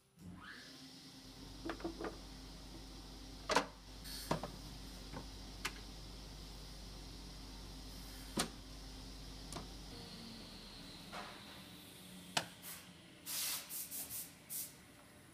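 Hollow plastic knocks and clatter as the mixer's plastic tank adapter is handled and a plastic bottle is set into its holder, over a steady low hum. Near the end comes a quick run of clacks as the clear cover is shut.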